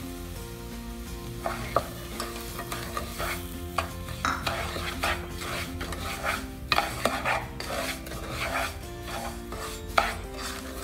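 Wooden spatula stirring and scraping semolina (rava) as it roasts in ghee and oil in a nonstick pot: repeated scraping strokes with a light sizzle, and a sharper knock near the end.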